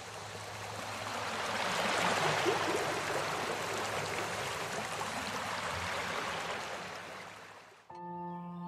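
Steady rushing of running water that swells and then slowly fades, cut off abruptly near the end. Soft ambient music with held tones starts right after the cut.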